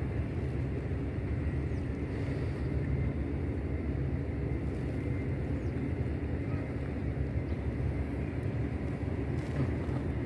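Steady low rumble of outdoor background noise, even in level throughout, with no distinct events standing out.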